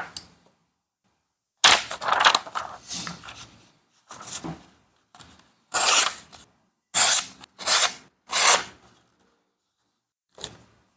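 Civivi Mini Sandbar folding knife blade slicing through a sheet of paper in a run of about seven quick cuts, each a short papery swish, followed by one brief cut near the end.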